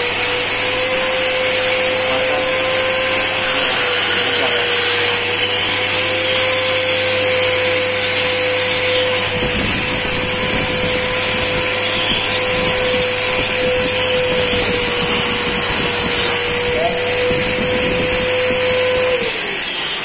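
Fisch MB-20 wet/dry vacuum and carpet cleaner running steadily, a constant motor whine over rushing suction air. About halfway through, a lower rumble joins as the extraction nozzle is worked over the rug. Near the end the motor is switched off and its whine drops in pitch as it winds down.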